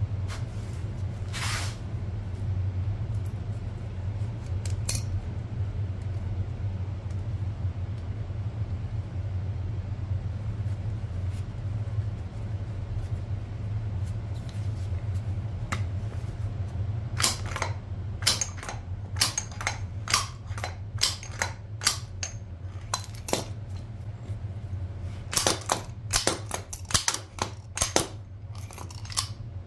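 Light metallic clinks and taps of tools and shock absorber parts being handled, coming in clusters in the second half, over a steady low hum.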